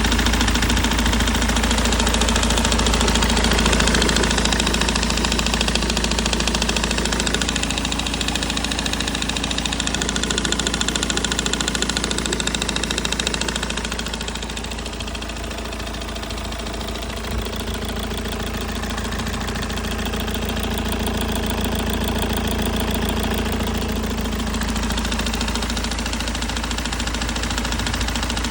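BMW E90 320d's M47 four-cylinder diesel engine running steadily with a knocking sound, which the owner puts down to a faulty water pump bearing.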